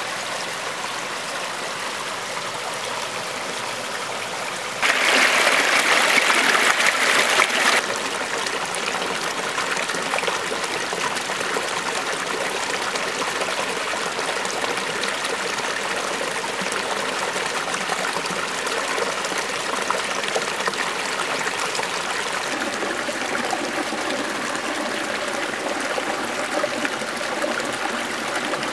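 Shallow rocky stream running and splashing over stones in a steady rush. It is louder for about three seconds, from about five seconds in.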